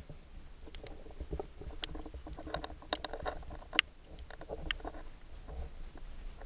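Underwater sound heard through an action camera's waterproof housing: a low rumble of moving water with scattered sharp clicks and crackles, the loudest a single click nearly four seconds in.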